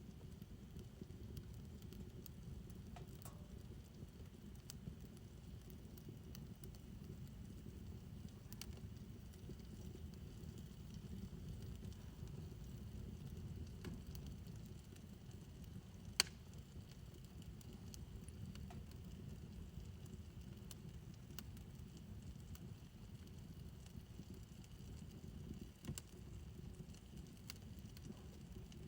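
Fire burning in a backyard fire pit: a faint steady low rumble with sparse, scattered crackles, and one sharp pop a little past halfway through.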